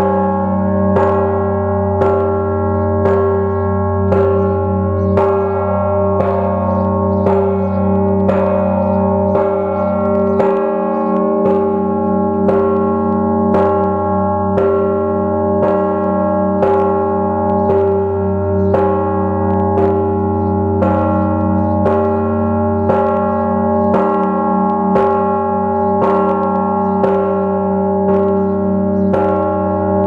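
Orthodox church bell ringing: a large bell with a deep, held hum, struck again and again with other bells, about once a second.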